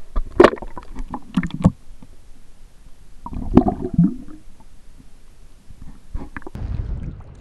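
Water splashing and sloshing in short bursts as a brook trout is let go back into the pond by hand, with a quick run of splashes at first, another flurry about halfway, and a couple more near the end.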